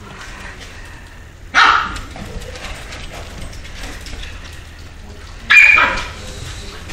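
Scottish terrier barking twice, two short, loud, sharp barks about four seconds apart.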